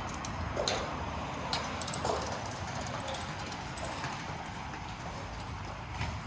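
Hard-soled footsteps clicking on the pavement, a few sharp steps at uneven intervals, over the steady hum of a city street.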